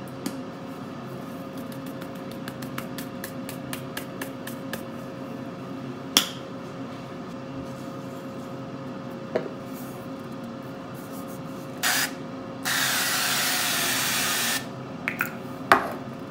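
Oil sprayer hissing onto sliced potatoes in a glass bowl: a short puff, then one steady spray of about two seconds. Before it come light ticks of seasoning falling on the potatoes and a few light knocks, over a faint steady hum from the preheating air fryer.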